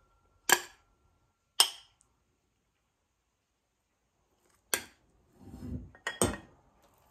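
Metal fork clinking against a china plate while cutting into a meatball: four short, sharp clinks spread across a few seconds, with quiet gaps between them.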